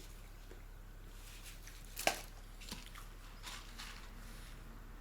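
Eating sounds: soft, wet chewing and handling of food. There is one sharp click about two seconds in and a smaller one just after.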